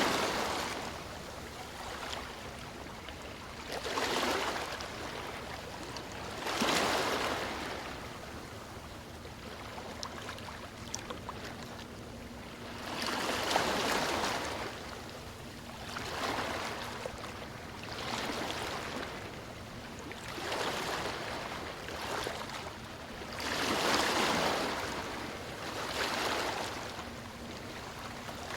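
Sea waves breaking and washing up a beach, a surge of surf every two to four seconds over a constant rush of water.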